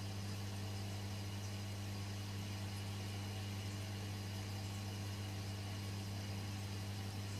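Aquarium pump motor humming steadily at a low pitch, with a faint even hiss above it.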